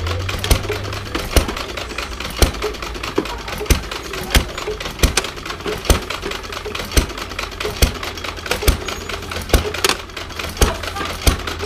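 Belt-driven antique Case stationary hay press running as straw is fed in. It gives a steady, even clacking about one and a half times a second over a low, continuous engine drone.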